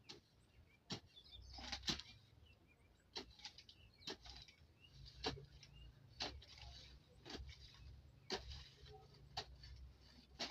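A hand weeding tool chopping into soil and grass about once a second, each stroke a sharp thud followed by a rustle. Faint bird chirps in the background.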